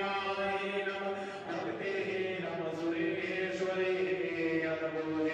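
Hindu devotional chanting: a voice singing a hymn in long held notes that glide slowly from pitch to pitch.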